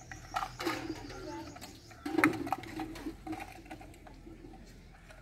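A dove cooing in two runs of low, repeated notes, with a sharp knock about two seconds in.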